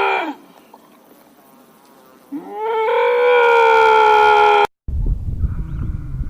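A long, drawn-out animal call with a steady, horn-like pitch: one call ends with a falling pitch, then after a pause of about two seconds another rises and is held for about two seconds before it cuts off suddenly. Low rumbling noise follows.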